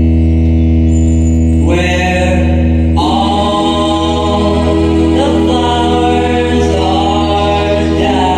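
Great Highland bagpipe playing: the drones hold a steady low chord while the chanter plays a melody above them, moving to new notes about two and three seconds in.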